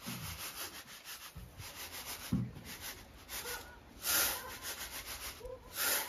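Dried beans being raked and sifted by hand across a large metal tray: a quick run of scratchy rustles, then two louder rushing sweeps of beans sliding over the metal, one about four seconds in and one near the end.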